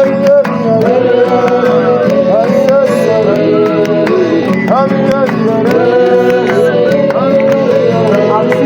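Worship music: a voice sings a melodic, bending line over a steady low sustained backing and light hand percussion.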